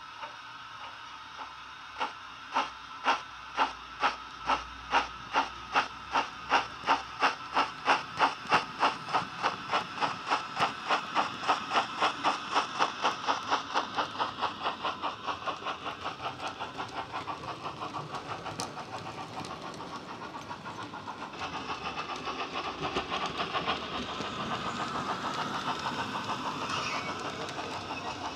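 Steam-locomotive exhaust from a Wheeltappers DCC sound decoder in a Bachmann J11 model, played through the model's small speaker. Slow chuffs, about two a second, begin a couple of seconds in and quicken steadily as the train gets away, until they run together into a fast beat. In the last third the running noise of the wagons on the track grows louder.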